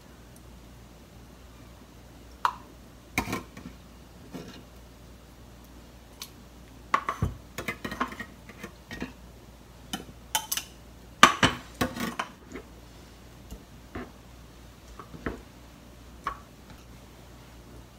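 Metal spoon clinking and scraping against an open tin can and small glass cups as canned fruit is spooned into the cups: scattered, irregular clinks and taps, busiest around seven to eight seconds in and again around eleven to twelve seconds in.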